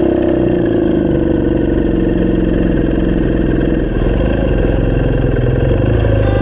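BMW R1200RS motorcycle's boxer-twin engine running steadily at idle, its note changing about four seconds in.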